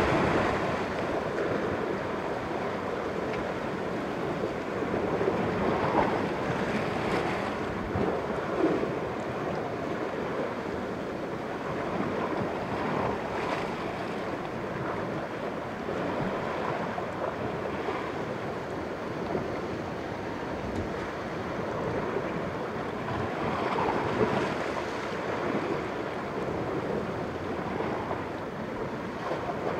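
Sea waves washing against the rocks at the foot of a cliff, a steady surf that swells a little every few seconds, with wind on the microphone. The sea is not very rough.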